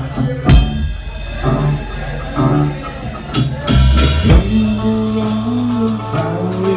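A live band playing amplified music: a drum kit with kick and snare and a loud cymbal crash a little over three seconds in, over a plugged-in acoustic guitar.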